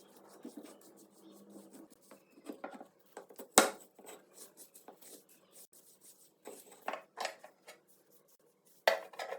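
Hand work with tools and small metal parts on a workbench: scattered clicks, scrapes and knocks, with one sharp knock about three and a half seconds in and a few more near the end.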